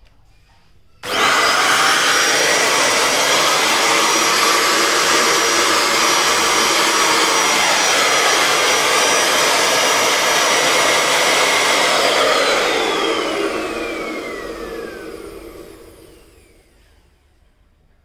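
Balzano handheld vacuum cleaner switched on about a second in, its motor running steadily with a high whine. It is switched off about two-thirds of the way through, and the motor winds down with a falling whine over several seconds.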